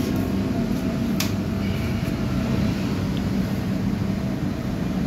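A steady low mechanical hum with a faint whine over it, and a single sharp click about a second in.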